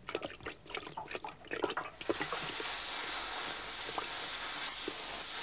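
Spilled liquid trickling and dripping in quick, uneven plinks. About two seconds in, this gives way to the steady hiss of a welding torch, with a few faint crackles.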